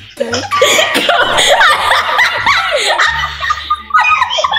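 Young girls laughing and giggling.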